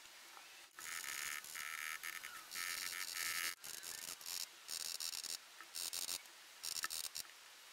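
Steel dent-repair rod scraping and rubbing against the inside of a Harley-Davidson gas tank as it is levered against the dent. It comes in about seven scratchy bursts of up to a second each, starting just under a second in.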